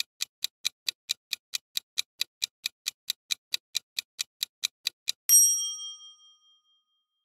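Quiz countdown-timer sound effect: quick, even clock ticks, about four to five a second, as the time runs out. About five seconds in the ticking stops at a bright bell ding that rings out for a second or so, signalling time up and the answer reveal.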